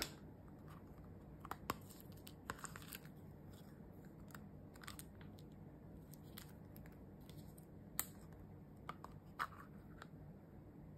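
Faint handling of a hard plastic lunch box: scattered light clicks and knocks of plastic, with the crinkle of a thin plastic bag, and one sharper click about eight seconds in.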